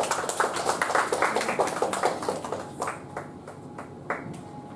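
Scattered applause from a small audience, with many quick hand claps that thin out after about three seconds and end in a few single claps.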